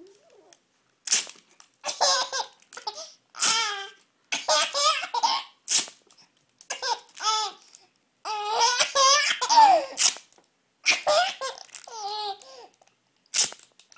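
Baby laughing in repeated high-pitched bursts of belly laughter, set off by sticky tape being pulled off its roll, with a few short rasping bursts of tape between the laughs.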